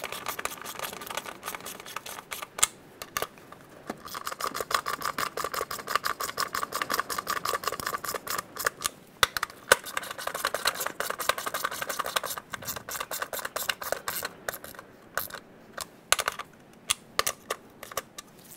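Hand ratchet clicking rapidly in long runs as locking nuts are run down on the air filter housing mounts, with short pauses between runs and only a few separate clicks near the end.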